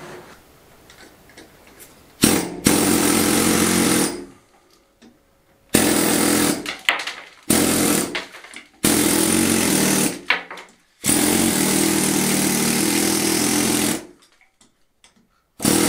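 Pneumatic air hammer chiselling a channel into a plastered stone wall, running in about six bursts of one to three seconds with short pauses between them.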